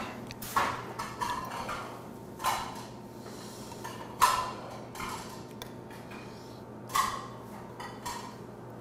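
A metal ladle and a small bowl clinking, a handful of short knocks spread out, as spicy fish stew broth is ladled from the pot into the bowl.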